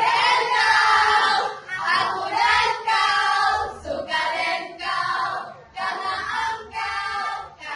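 A group of voices chanting a cheer (yel-yel) together in short, loud phrases with brief breaks between them.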